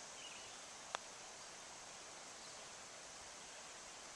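Quiet outdoor ambience with a steady high hiss, a brief chirp near the start, and a single sharp click about a second in.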